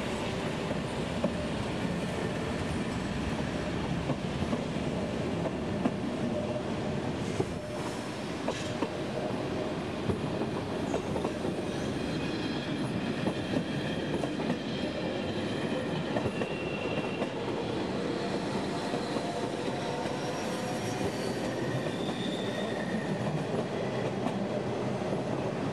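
Berner Oberland Bahn narrow-gauge electric train rolling slowly past on curved track, its wheels clicking over the rail joints. Thin wheel squeals join in about halfway through.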